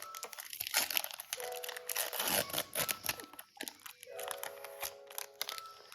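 Foil trading-card booster pack wrapper crinkling and tearing as it is opened by hand: a run of short sharp crackles, over soft background music with held notes.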